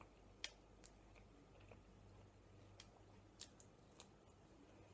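Near silence broken by a handful of faint, sharp mouth clicks from a person chewing pizza, the sharpest about half a second in.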